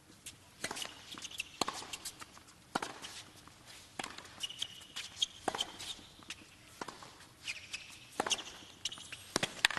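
Tennis rally on a hard court: sharp racket strikes on the ball roughly every second or so, with lighter ball bounces and player footsteps between.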